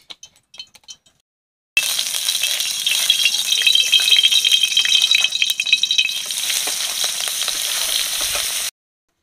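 Prawns frying in hot mustard oil in a karahi: a loud, crackling sizzle that starts abruptly about two seconds in and cuts off sharply near the end, after a few faint clicks.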